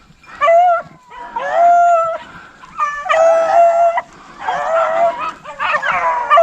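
Rabbit hounds baying while trailing a rabbit: a run of long, drawn-out howling calls, several dogs overlapping near the end.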